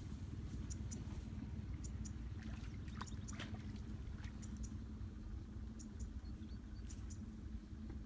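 Rural outdoor ambience: a small animal's high double chirp repeating about once a second over a low steady rumble.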